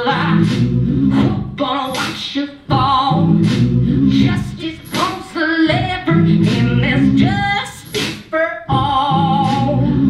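Live music: wordless singing into a handheld microphone in short gliding phrases, over sustained low keyboard chords.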